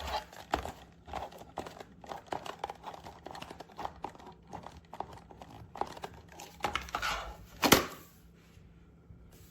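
Handling noise from a plastic portable lock box: a string of small clicks, knocks and rustles. The loudest knock comes near the end, then it goes quiet.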